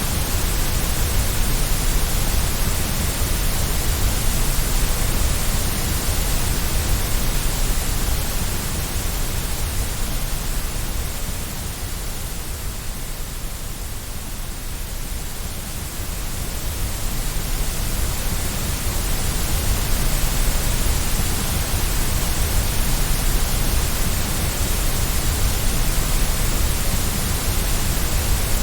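White noise: a steady, even hiss that dips slightly in loudness for a few seconds around the middle before swelling back.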